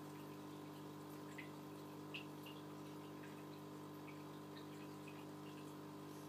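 Faint aquarium water sounds: small scattered drips and plinks over a steady low hum.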